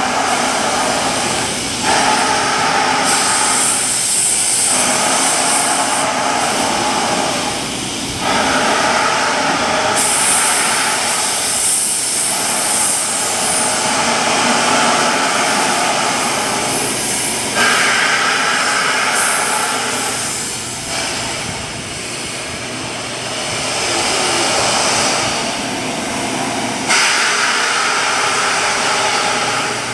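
Narrow-gauge steam locomotive hissing steam, a loud steady hiss that swells and eases every few seconds and comes back sharply several times.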